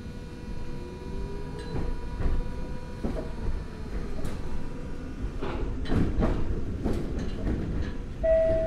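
Inside a Nagoya Municipal Subway 3000 series car pulling away: a faint rising electrical whine from its armature chopper control, then the wheels knocking over rail joints about twice a second as it gathers speed. Near the end a two-note falling chime sounds.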